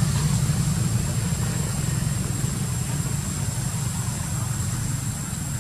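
A steady low rumble with a thin, steady high whine above it.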